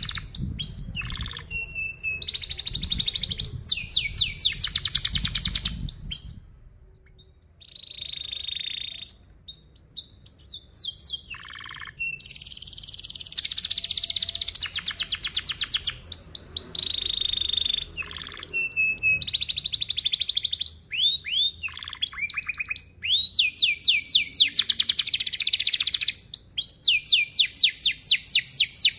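Domestic canary singing long, tight trilled rolls of rapidly repeated notes, mixed with chirps and downward-sliding whistles. The song breaks off briefly about seven seconds in and picks up again fully about twelve seconds in.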